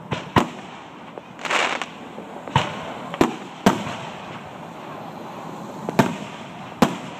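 Aerial fireworks shells bursting: about seven sharp bangs, some in quick pairs, with a short hissing crackle about a second and a half in.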